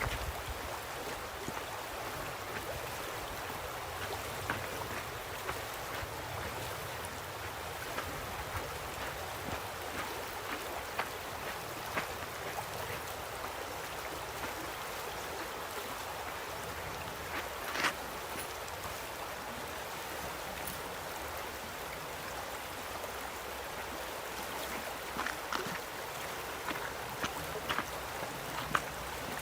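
River water running steadily, a constant rushing noise, with a few brief sharp clicks over it, several of them near the end.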